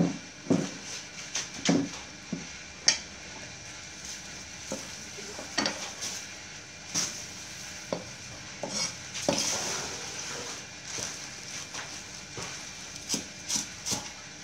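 Rustling and crackling of fresh leafy herbs and a plastic bag as leaves are picked off their stems by hand, with scattered small snaps and clicks and a longer rustle about nine seconds in.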